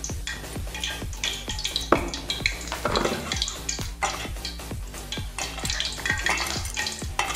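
A hand squishing and turning raw chicken pieces in a thick, wet egg-and-cornflour spice marinade in a steel bowl: wet squelching with small slaps and clicks.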